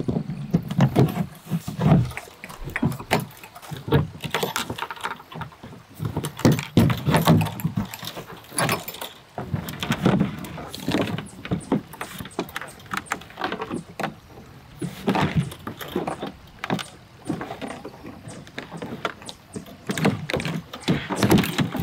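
Tucktec folding kayak being taken down and folded by hand: its plastic hull sheet flexes, rubs and knocks, with repeated clicks and rattles as the fasteners are unclipped.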